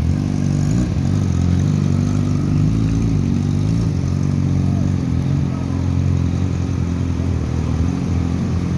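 Yamaha R6 inline-four engine running through a Yoshimura aftermarket exhaust, revved in a few short throttle blips during the first four seconds, then held at a steady low speed.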